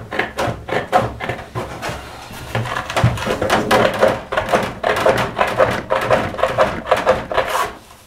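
Hand tin snips cutting sheet metal: a steady run of sharp snipping clicks, about three a second, with a short lull about two seconds in.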